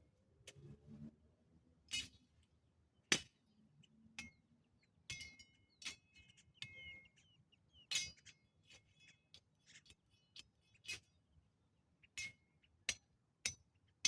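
A series of sharp clicks at irregular intervals, about one or two a second, some followed by a brief high ring.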